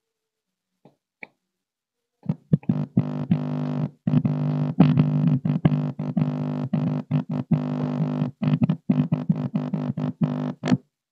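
Music with a strong bass playing through a Polytron PAS 68 active speaker under test, starting about two seconds in. The repairer judges the output to be normal again after fixing the 28-volt supply fault.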